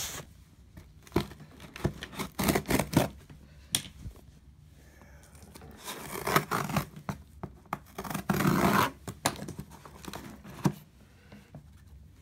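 Scissor blade pressed into the taped seam of a cardboard shipping box, ripping through the packing tape in a series of short tearing strokes, the longest and loudest lasting about a second near eight seconds in.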